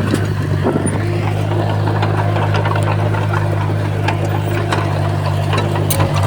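Heavy diesel engine of earthmoving equipment running steadily, with scattered light clicks and clanks over it.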